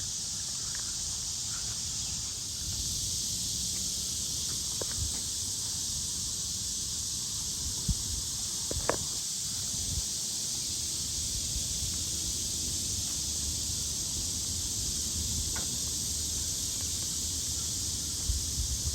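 Cicada chorus: a steady, loud, high-pitched hiss. A few short chirps and some low bumps break through here and there.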